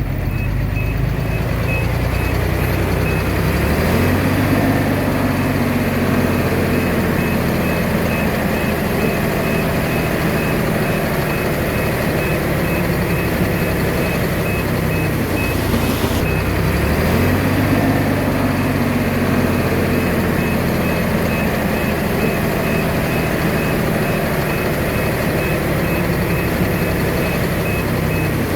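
Komatsu D21A bulldozer's diesel engine working under load, its pitch rising twice as it revs up, about three seconds in and again just past halfway, with a backup alarm beeping steadily over it.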